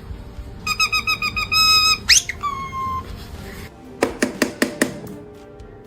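A parrot mimicking electronic beeps: a short rapid run of beeps then several held beeps, followed by a whistle that shoots up in pitch and drops back to a held note. About a second later comes a quick run of about six sharp clicks.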